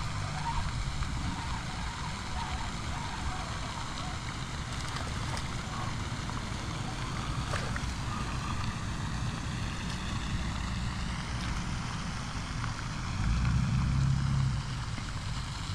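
Wind buffeting the microphone: an uneven low rumble over a steady hiss, growing louder for a second or so about thirteen seconds in.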